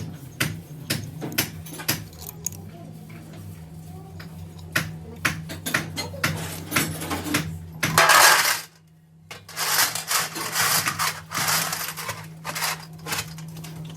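Small metal parts of an automatic transmission valve body clinking and tapping against metal as they are handled, over a steady low hum. A loud hissing rush comes about eight seconds in, cuts off briefly, and returns from about ten to twelve seconds.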